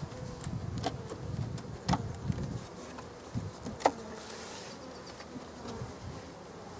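Honey bees buzzing in a steady hum around an open hive, with a few sharp knocks about one, two and four seconds in.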